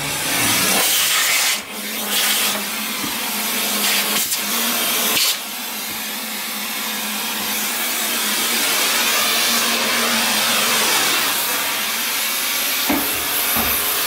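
Central vacuum hose sucking dust off a SEBO Felix power head: a loud, steady rush of air over a low hum. The rush changes in level as the nozzle is moved about, dipping briefly a couple of times, with a few light knocks of the nozzle against the housing near the end.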